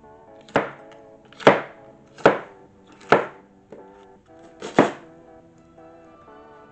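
Kitchen knife chopping through red onion onto a wooden cutting board: five separate sharp chops, roughly a second apart. Background music plays underneath.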